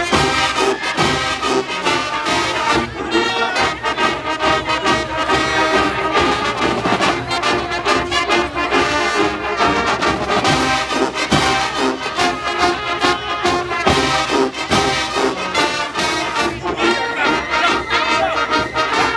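Marching band playing in the stands: a loud brass section of sousaphones, trumpets and trombones over drums keeping a steady beat.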